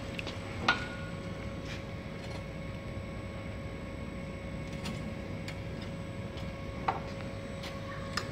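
Steady workshop hum with a faint whine, broken by three sharp metallic clinks, the loudest about a second in and two more near the end, as the wire and a hand tool knock against the steel roller guides of a chain link fence machine.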